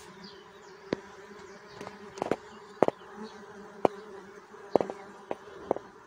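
Bees buzzing steadily around a flowering shrub, a low continuous drone, broken by sharp clicks about once a second, the loudest near three and near four seconds in.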